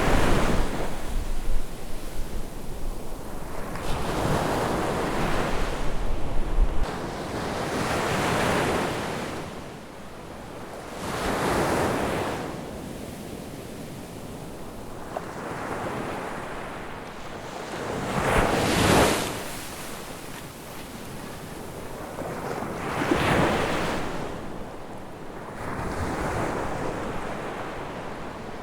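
Ocean waves breaking on a beach, each surge of surf swelling and washing out every three to four seconds, with wind rumbling on the microphone in the first several seconds.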